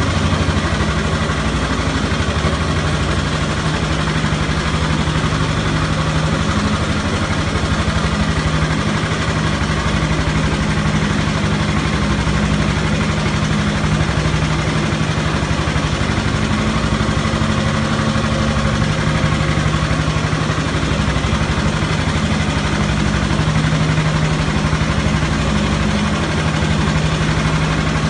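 An engine running steadily at an even pace: a constant low hum under a steady rushing noise, with no change in speed.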